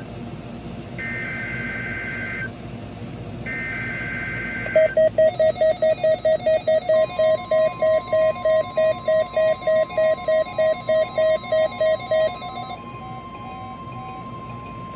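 NOAA Weather Radio Required Weekly Test: two bursts of the SAME digital header, a warbling two-tone data chirp each lasting about a second and a half. About five seconds in, a buzzy receiver alert beep starts pulsing about three times a second and runs for some seven seconds. A steady 1050 Hz warning alarm tone comes in about two seconds after the beeping starts and outlasts it.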